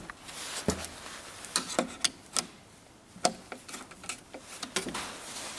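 Scattered light clicks and knocks, about seven in all, of drawer runners and cabinet parts being handled and fitted into place.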